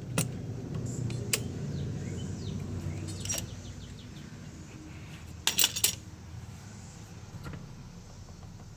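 Metal hand tools clicking and clinking while pliers clamp and pull the fuel line off a push mower's carburetor, with a short cluster of clinks about five and a half seconds in. A low steady rumble runs underneath.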